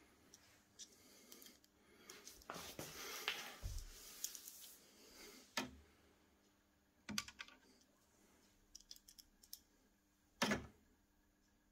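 Faint clicks and scrapes of a magnetic screwdriver tip on a small screw as it is centred and driven into the inkjet printer's printhead carriage. A scratchy rustle for a few seconds near the start, then single sharp clicks a second or more apart.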